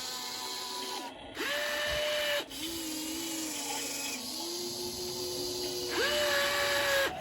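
Electric motors of a radio-controlled model excavator whining as it works its boom, arm and bucket. The whine is a steady high pitch that starts and stops sharply about a second and a half in and again near the end, with a lower, steadier whine in between.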